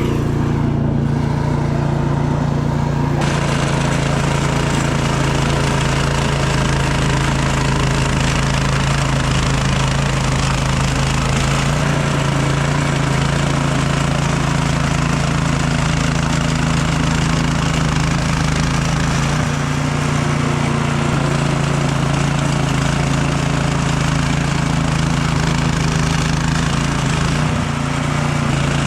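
Craftsman snowblower engine running steadily at a constant speed.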